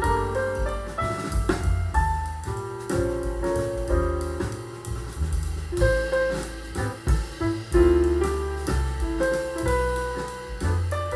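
Jazz with piano and bass played back through a pair of B&W Vision V201 bookshelf loudspeakers, heard through a microphone in the room.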